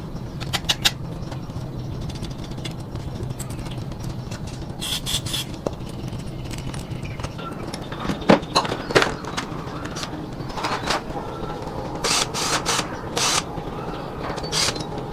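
Irregular clicks and knocks, several in quick clusters, over a steady low hum.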